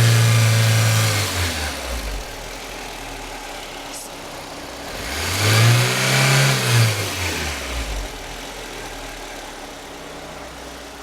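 Lada Kalina's 8-valve four-cylinder engine revved twice and settling back to idle each time. The owner says it runs without knocking now that the camshaft's axial end play has been removed.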